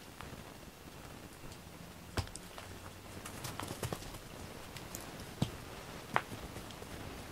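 A scattering of light, sharp clicks and taps, a second or two apart, as two cats move about close by. The loudest come about two seconds in, and again near five and a half and six seconds.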